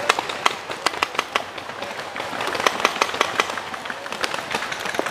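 Paintball markers firing in a skirmish: an irregular string of sharp pops and cracks, several a second, coming thicker from about halfway through.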